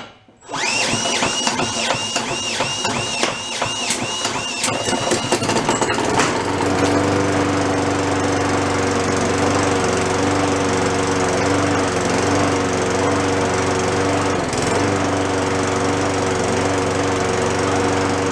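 Toro Personal Pace lawn mower engine spun over by a cordless drill on the flywheel nut. The drill's whine rises and falls about three times a second as it drags the engine through each compression. About six seconds in, the engine catches and runs steadily on its own.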